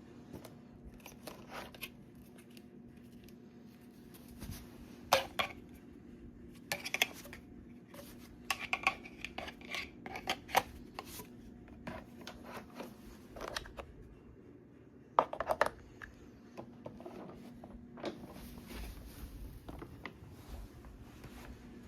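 Hard plastic parts of an upright vacuum being handled: irregular clicks, knocks and clatter, with the loudest clusters about five, seven, ten and fifteen seconds in.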